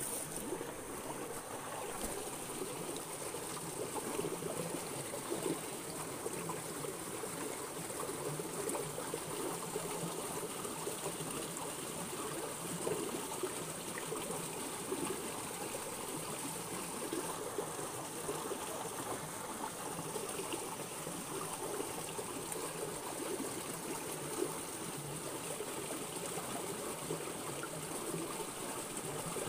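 Small rocky stream flowing steadily, water trickling and gurgling over stones.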